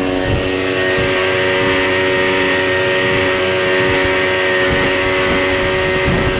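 Motorboat engine running steadily at high speed, with water rushing along the hull and wind noise.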